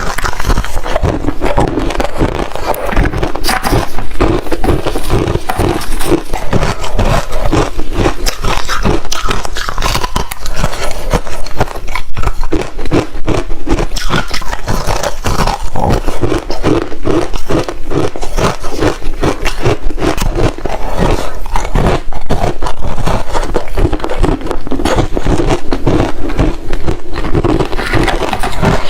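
Crunchy ice being bitten and chewed close to the microphone: loud, continuous crunching made of many quick cracks.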